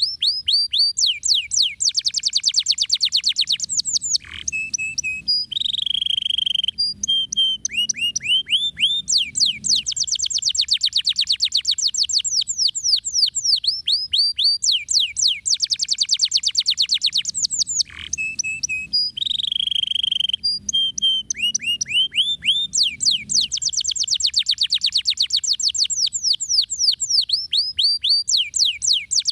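Domestic canary singing long rolling trills of rapid high notes, each sweeping downward, broken twice by a short phrase with a steadier, lower held note before the fast trills resume.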